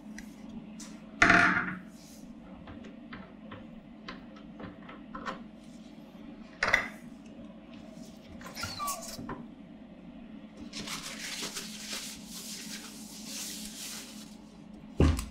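The removable stainless-steel bowl, lid and paddle of a Magimix Gelato ice-cream maker being handled: a loud knock about a second in, a few lighter clicks and a second knock, a short metal scrape, then a few seconds of paper-towel rustle as the bowl is lifted out and wiped, ending in another knock.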